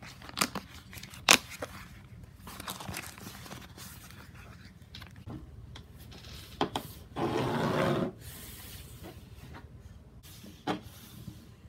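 Handling sounds: a leather satchel being opened, with sharp clicks near the start, then paper rustling as a crystal comes out of a crumpled paper bag onto a table. The loudest rustle lasts just under a second, a little past the middle, and a few knocks follow.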